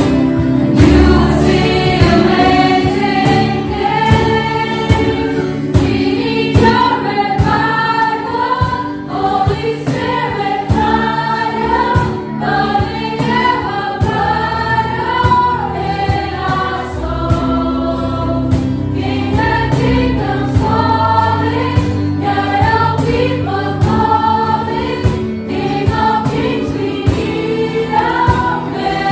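Worship band and a group of singers performing a Christian worship song together, voices carrying the melody over a steady accompaniment.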